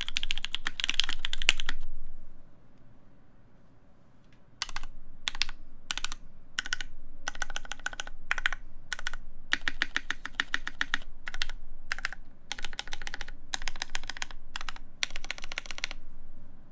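Typing on a mechanical keyboard: an EVE Moon TKL with an aluminum plate, GMK keycaps and stock, unmodded Gateron Cap v2 Milky Brown tactile switches. A fast run of keystrokes is followed by a pause of about two seconds, then short bursts of key presses with brief gaps between them.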